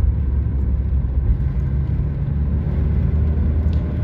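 Ford Sierra's 2-litre four-cylinder petrol engine running at a steady cruise, with road rumble, heard from inside the cabin as an even low drone.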